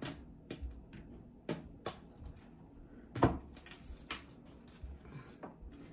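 Light taps as a tarot deck is split and handled on a glass tabletop: several separate sharp clicks, the loudest a little over three seconds in.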